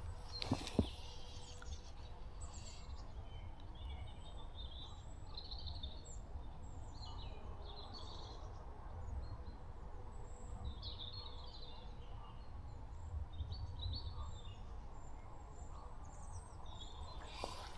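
Small songbirds calling and chirping in short scattered phrases over a low steady outdoor rumble, with a couple of sharp clicks in the first second.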